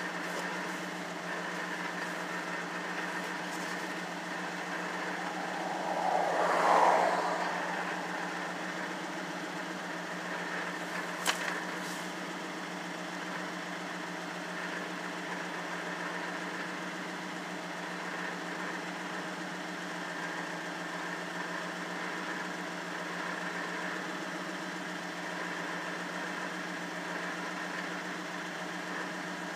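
Pickup truck engine idling steadily, heard from inside the cab. About six seconds in a brief swell of noise rises and falls away, and a single sharp click comes near the middle.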